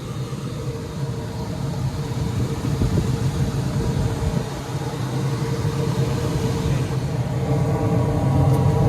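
Carrier packaged heating unit running, its blower giving a steady hum with a constant tone over a low rumble, growing slowly louder.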